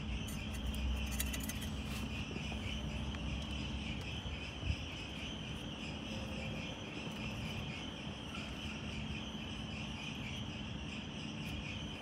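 Crickets chirping in a steady, continuous trill, with a faint low hum and a single light knock about five seconds in.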